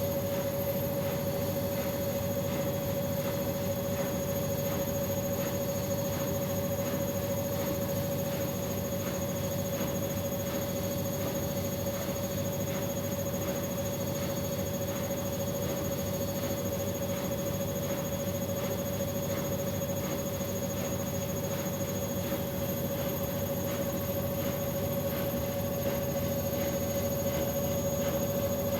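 Bosch Maxx WFL 248Y front-loading washing machine spinning at a steady high speed with an unbalanced test load, its motor giving a constant whine over an even hum.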